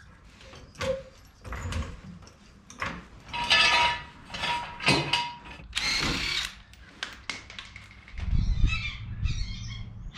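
Knocks and clicks of tool work on a car's wheel, with two short bursts of a power tool about three and a half and six seconds in. Near the end a bird begins squawking over and over.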